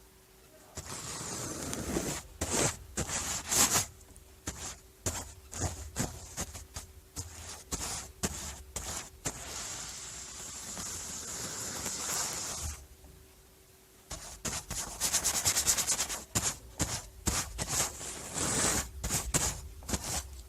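Paintbrush strokes rubbing across a surface, short repeated swipes with a longer continuous stretch in the middle. There is a brief pause about two-thirds of the way through, then a run of quick strokes.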